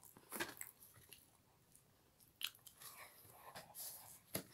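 Faint chewing and biting of soft buns, with a few short scattered crunches and a sharper click near the end.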